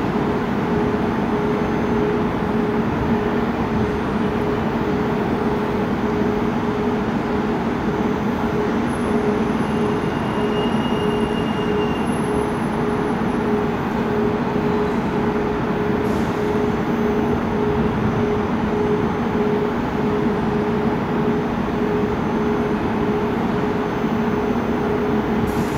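Electric multiple unit of a CP regional train moving slowly into the platform: a steady electric hum with a constant drone, even throughout, and a brief faint high squeal around the middle.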